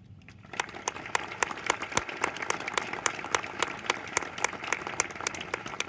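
Audience applauding, starting about half a second in, with claps close by standing out sharply over the rest.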